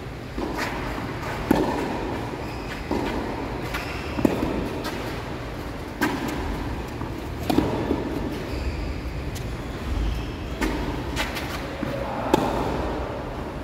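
Tennis rally: the ball is struck back and forth by rackets, a sharp hit roughly every one and a half seconds, with softer knocks between, over a steady low rumble.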